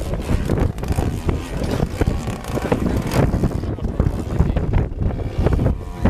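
Engine and propeller of a 2.2 m radio-controlled Yak-54 aerobatic model plane in flight, under heavy wind buffeting on the microphone.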